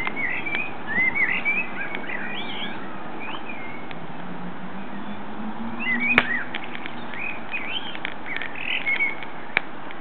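Common blackbird singing: two runs of warbling phrases, the first in the opening three seconds and another from about six seconds in. A few sharp clicks sound over a steady background hiss, the loudest about six seconds in.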